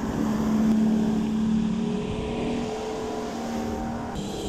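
200 HP Mercury Saltwater Series outboard running steadily as the boat trolls, a constant engine hum over the rush of the wake and wind.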